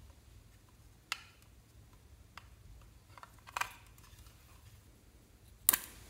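Three sharp plastic clicks about two seconds apart while small plastic containers are handled, the loudest near the end as the snap lid comes off a small plastic pot.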